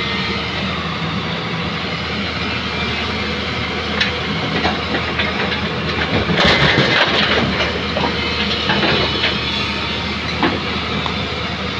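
Hyundai excavator's diesel engine running steadily, with scraping, rattling and clanks from broken old concrete being worked. The scraping grows loudest about halfway through.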